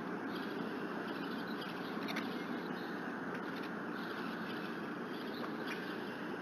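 Steady outdoor hiss picked up by an eagle-nest camera microphone, with a few faint clicks, one about two seconds in and another near the end.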